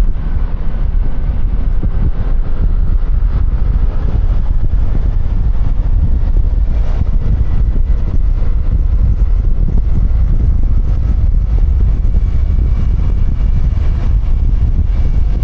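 Wind buffeting a microphone clipped to the outside of a motorcycle helmet while riding a QJMotor Fortress 160 scooter at speed, a steady low rumble with the scooter's engine and tyre noise underneath.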